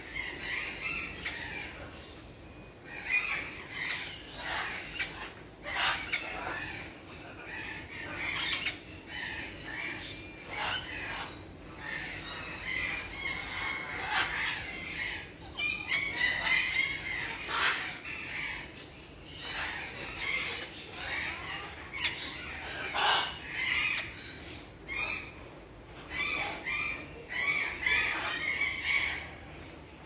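Many parrots calling, short loud calls one after another, some overlapping.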